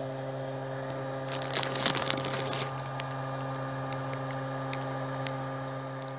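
A 12 V battery charger runs with a steady hum from its small cooling fan while charging a battery, the fan working properly again after being cleaned and unjammed. A brief crackling rustle comes in about a second and a half in and lasts just over a second, with a few light clicks after it.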